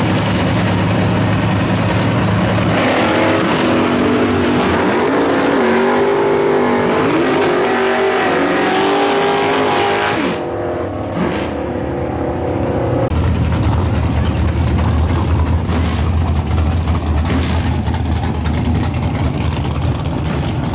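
Drag-car V8 engines: a low idle at first, then an engine revved hard at high revs, its pitch rising and falling, as in a launch or burnout. After a short break near the middle, a deep steady idle rumble takes over.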